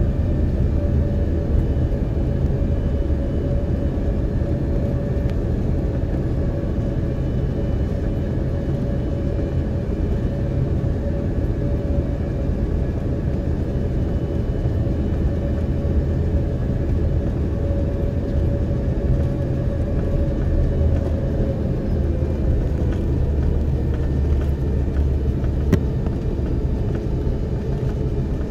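Airbus A330-300 with Rolls-Royce Trent 700 engines: a steady, loud engine drone and rumble heard on board, with a thin hum that drops slightly in pitch about three-quarters of the way through.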